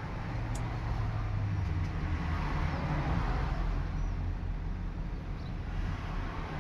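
Steady low rumble with a hiss over it, slightly louder in the middle: outdoor background noise, like traffic.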